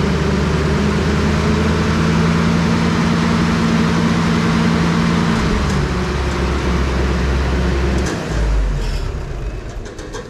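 Ford gas engine of a Bandit wood chipper running steadily, its pitch shifting down about halfway through, then winding down and stopping near the end with a few light clicks.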